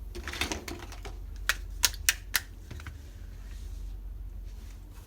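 Small toy kitchen pieces being handled, with a patter of light clicks at the start followed by four sharp separate clicks close together, like small utensils tapped or set down against each other.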